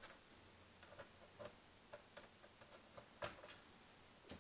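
Faint, scattered light clicks and taps, the loudest about three seconds in: plastic place markers being set into the grooves of a Stampin' Up Simply Scored scoring board.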